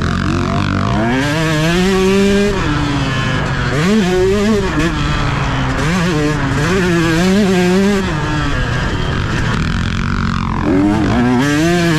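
Two-stroke motocross bike engine revving hard and dropping back again and again as the rider works the throttle and gears, easing off briefly about three seconds in and again near ten seconds. Heard from a helmet chin-mounted camera, with steady wind and track noise underneath.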